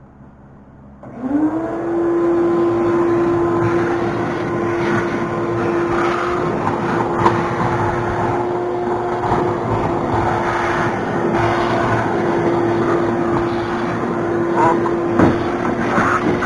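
Vacuum cleaner switched on about a second in: its motor spins up quickly to a steady whine and keeps running with a loud rush of suction, with scattered clicks and rattles as machining debris is sucked up.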